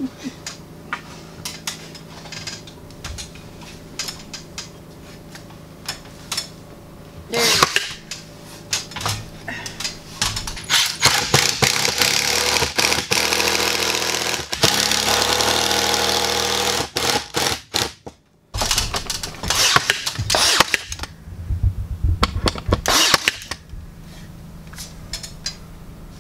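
Cordless drill driving long screws through pine ceiling boards. Scattered knocks and taps of the boards being handled come first. The drill then runs for about six seconds straight, stops, and goes again in several shorter bursts.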